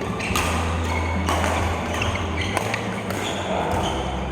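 A few sharp clicks of billiard balls and cue strikes over a steady low hum and hall noise.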